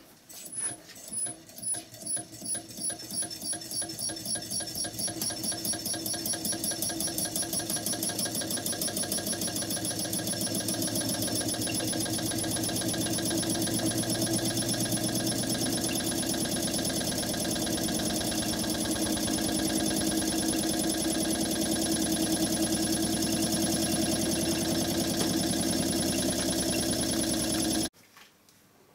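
Newman-type electric motor prototype running on 9 V batteries as it starts up: a ticking at about two a second that speeds up over several seconds into a steady buzz. It cuts off suddenly about a second before the end as the power is switched off.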